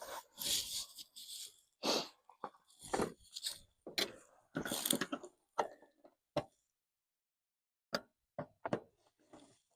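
Intermittent clicks, knocks and rustling from hands prying at a plastic clip and handling parts, with a pause in the middle and a few sharp clicks near the end.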